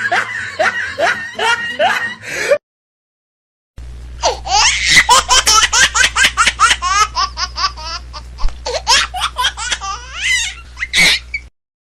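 Laughter sound effects: one burst of rhythmic laughing cuts off abruptly, and after about a second of silence a second, longer fit of rapid, high laughter starts over a steady low hum and then stops suddenly.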